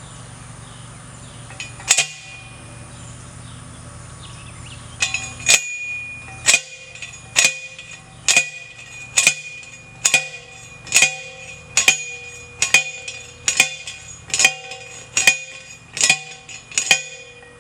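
Hammer blows on metal, each with a ringing tone: a single blow about two seconds in, then a steady run of about a dozen blows at a little under one a second.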